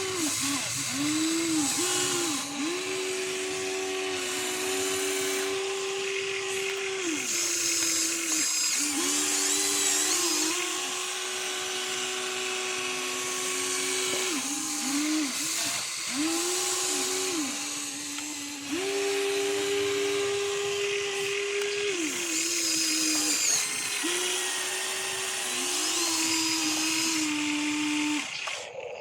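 Small electric motors of a radio-controlled toy excavator whining, holding a steady pitch for a few seconds at a time and then gliding up or down as they start, stop and change speed.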